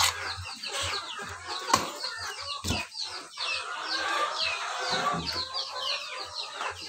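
A flock of chickens clucking and calling, many short high calls overlapping throughout, with one sharp knock a little under two seconds in.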